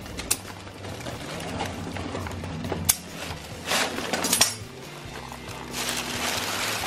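A plastic grocery bag rustles as a live lobster is handled on a kitchen counter, with a few sharp clicks and taps as shell knocks against the counter and bag. The rustling is heaviest near the end, and a faint steady hum runs underneath.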